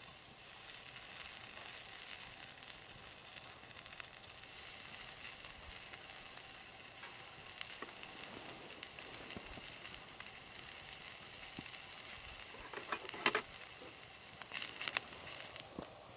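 Pork slices sizzling on a wire grill over a burning coal briquette, a steady hiss with scattered fat crackles. The sizzle picks up as a second slice goes onto the grill, and a few louder sharp crackles or clicks come near the end.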